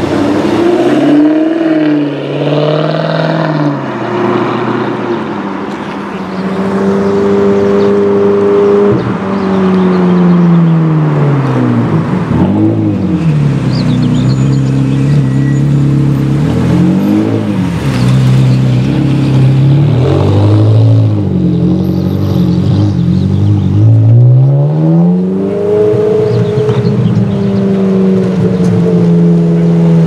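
Sports-car engines pulling away one after another: a Jaguar F-Type, then a Ferrari 360's V8. The engines rev up and drop back in a series of rising and falling sweeps, over road and exhaust noise.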